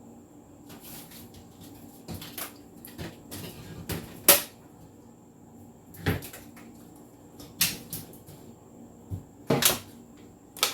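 Food containers and jars being handled and set down as a refrigerator shelf is emptied: a series of knocks and clatters, the loudest about four seconds in.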